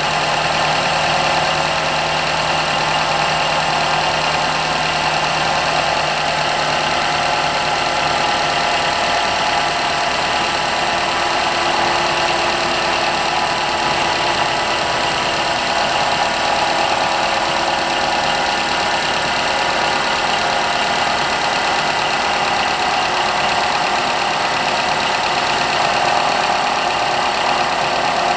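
2002 Suzuki Solio engine idling with a steady abnormal noise from its accessory drive belt, a continuous whine that does not change.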